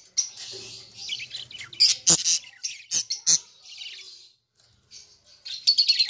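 Budgerigars chirping on and off, high and twittery, with a few sharp clicks and knocks from the wire cage as a chick is put back inside.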